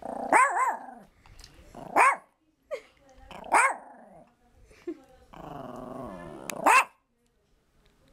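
Yorkshire terrier giving a handful of short, high barks a second or two apart, with a low growl about five seconds in that runs straight into the last bark.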